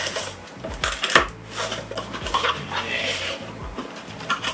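A knife slicing through the packing tape on a small cardboard box, then the box flaps pulled open, with sharp scrapes and crackling of tape and cardboard; the loudest scrape comes about a second in. A low hum from a faulty microphone sits underneath.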